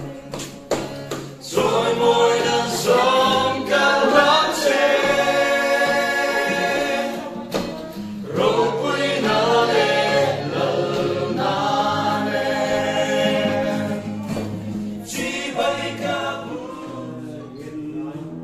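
Church choir singing a gospel song in harmony, with sharp beats among the singing. The singing breaks briefly about seven and a half seconds in and again near the end.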